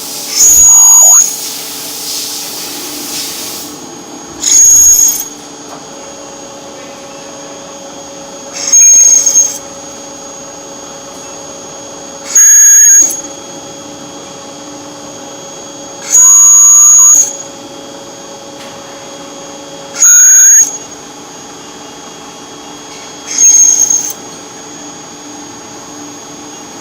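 A loud, shrill squeal sounding in seven short bursts, about one every three to four seconds, over a steady background hum.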